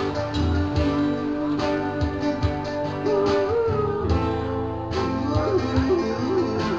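Live duo music: guitars playing chords over a steady beat, with a lead line bending up and down in pitch in the second half.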